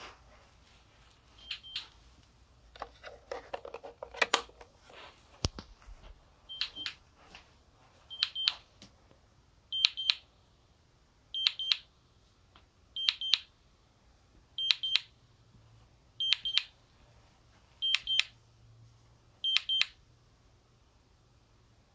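GE Simon XT alarm control panel sounding short, high beeps in pairs, repeating evenly about every second and a half, typical of the exit-delay countdown after the system is armed. Some handling knocks come about three to five seconds in.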